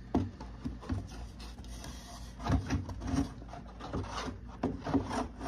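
Model airplane parts being handled and fitted by hand: irregular clicks, light knocks and rubbing, with a cluster of louder knocks about two and a half seconds in and more near the end.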